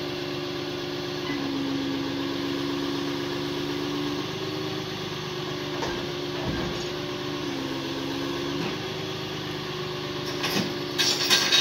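Tow truck engine idling while its hydraulic wheel-lift raises the front of a small school bus; the engine's tone shifts twice as the lift is worked. A burst of loud rattling clatter comes near the end.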